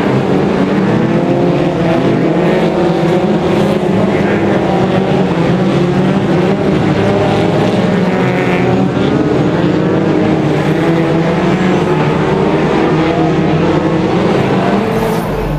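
Several winged oval-racing stock cars racing together, many engines running at once with their pitches rising and falling as they accelerate and lift off around the bends.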